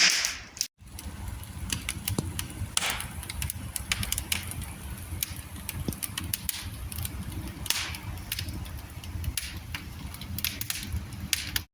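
Wood fire burning in a fireplace, crackling with irregular sharp pops and a few short hisses over a steady low rumble.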